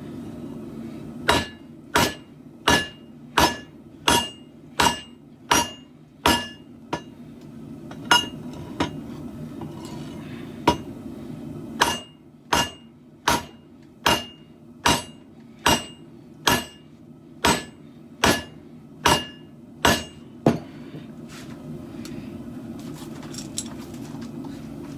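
Hand hammer striking steel on an anvil while forging a katana blade, roughly one blow every three-quarters of a second, each with a short metallic ring. The blows pause briefly near the middle and stop about 20 seconds in, over a steady low hum.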